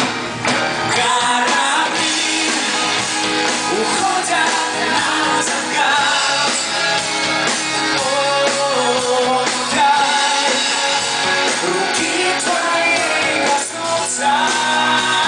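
Live pop-rock band playing, heard from the audience: electric guitar, keyboards and drums, with the lead singer's voice over them.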